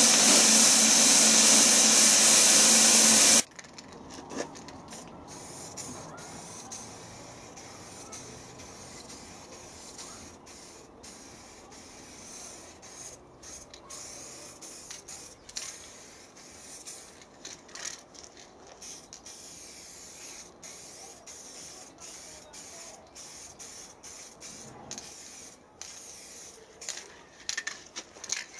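A loud, steady hiss cuts off suddenly about three seconds in. Quieter workshop noise follows, with scattered light clicks and taps.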